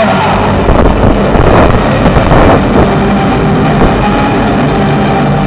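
Loud rumbling drone of live-show sound effects over an arena sound system, recorded close to overload, with a rushing swell about one and a half to two and a half seconds in.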